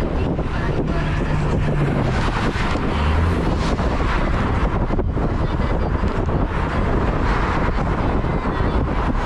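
Wind rushing and buffeting over the microphone of a camera riding on a moving road bike, a steady loud rumble with no break.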